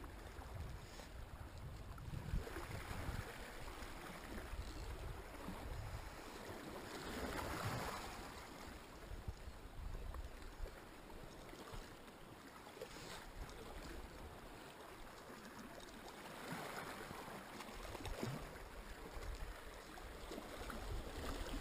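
Small waves washing and lapping against rocks, swelling twice, with a low wind rumble on the microphone.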